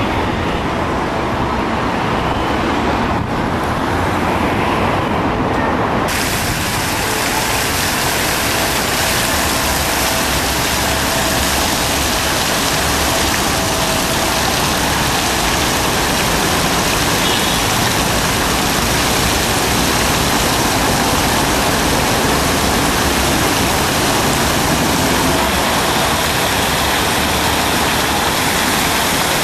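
Open-air street ambience with distant traffic for the first few seconds. About six seconds in it changes abruptly to the steady, dense hiss of a fountain's water jets splashing into the basin.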